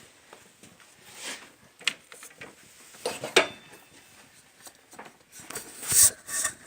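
Scattered clicks, knocks and rubbing of parts and tools being handled during an intake manifold job, with a louder scrape near the end.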